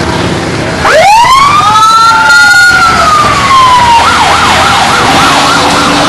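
Emergency-vehicle siren sounding loudly: a wail that rises sharply about a second in and slowly falls, then switches to a fast yelp of about three up-and-down sweeps a second, over low vehicle engine noise.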